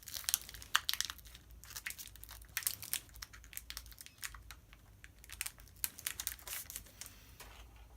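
Foil wrapper of a Pokémon trading-card booster pack crinkling and tearing as it is opened, an irregular scatter of sharp crackles.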